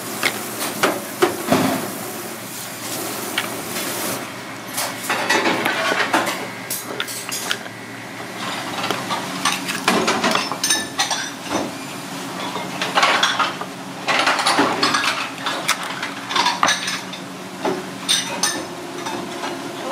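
Live abalone being shucked: shells knocking and clinking against each other and a cutting board, and a thin metal blade scraping along the shell, in irregular knocks and scrapes.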